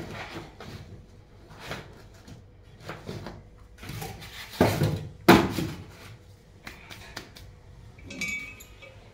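Handling noises as a new refrigerator compressor and its cardboard box are moved about: scattered knocks and rustles, the loudest a pair of thumps about five seconds in.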